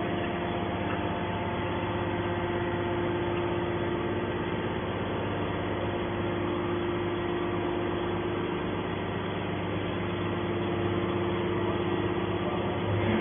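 Hydraulic metal baler's motor and pump running with a steady hum and several held tones.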